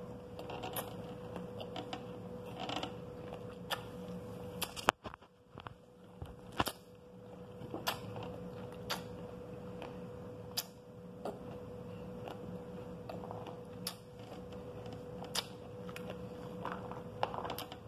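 Metal spoon clicking against a glass plate while pomegranate seeds are scooped and eaten, with soft chewing between the clicks. The sharp clicks come about once every second or so.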